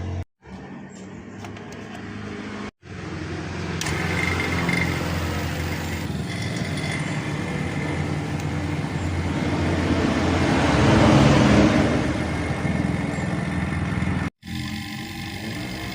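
A small electric motor running steadily with a low hum, joined by a rushing hiss that swells about eleven seconds in; the sound drops out briefly three times.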